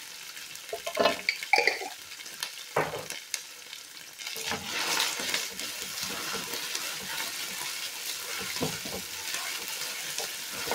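Chopped onions with garlic and ginger paste sizzling in hot oil in a steel pan, stirred with a wooden spoon. A few knocks of the spoon against the pan come in the first three seconds, and the sizzle gets louder about four seconds in as the paste is stirred through.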